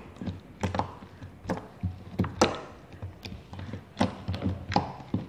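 Pink slime being pressed and poked into with the fingers, the trapped air escaping in a string of short, sharp pops and squelches at an uneven pace.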